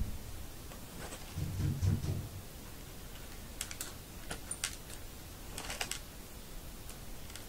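Metal fork tines clicking and ticking as rubber loom bands are worked over them by hand, in a few quick clusters of small clicks, with some dull thumps of handling about one to two seconds in.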